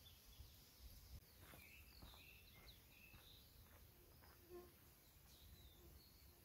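Near silence with faint birdsong: scattered short chirps and twitters, over a faint low rumble.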